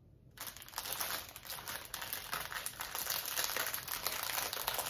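Clear plastic bags of diamond-painting drills crinkling as they are handled, a dense crackle that starts about half a second in.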